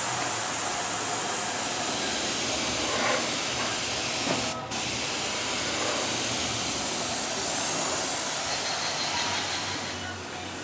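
Compressed-air gravity-feed paint spray gun hissing steadily as it sprays paint, with a brief break about halfway through when the trigger is let go; the hiss eases off near the end.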